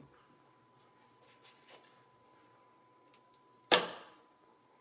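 A few faint clicks, then one sharp knock of a hard object about three and a half seconds in, ringing briefly, over a faint steady hum.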